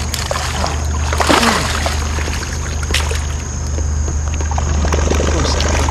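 Water splashing and sloshing beside a kayak, loudest about a second in, over a steady low rumble.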